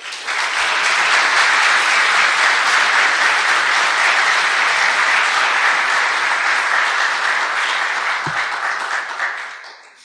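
Audience applauding, starting suddenly and dying away near the end.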